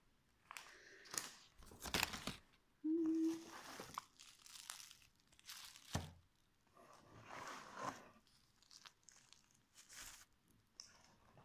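Bubble wrap and packing paper crinkling and rustling as they are pulled from a box and handled, in a run of short bursts. About three seconds in, a brief steady low tone lasts about a second.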